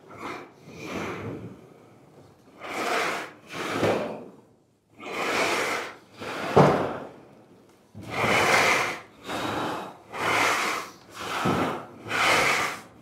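A Wuko 3352 hand roll bender's rollers run back and forth along a long sheet of coil-stock metal, rolling the centre crease of a roof valley. Each pass is a short noisy swell, about one a second and coming quicker in the second half, with one sharper knock about six and a half seconds in.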